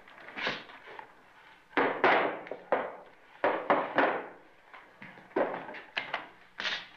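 A quick run of sharp knocks and thuds, about nine in all, coming in clusters of two or three with short pauses between.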